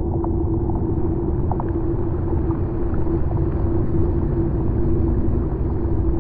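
Ambient soundscape drone: a steady low rumble under a held, unchanging hum, with a second, lower hum dropping out about five seconds in and a few faint ticks.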